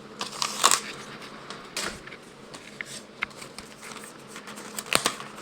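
Rustling and light clicking of trading cards and their paper packaging being handled, with a few sharper clicks scattered through.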